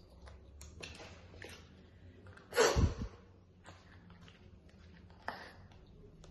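A woman smoking a cigarette up close: short breaths and drags at a few points, and one much louder burst of breath about two and a half seconds in.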